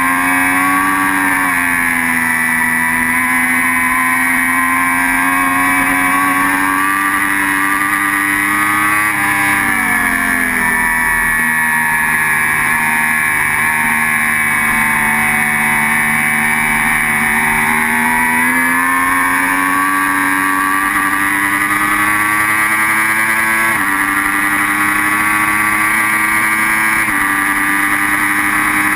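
Sportbike engine at high revs heard from the onboard camera, with wind rush over the fairing. The engine note drops sharply about nine seconds in as the bike slows for a corner, stays lower for several seconds, then climbs steadily and jumps up in pitch a couple of times near the end.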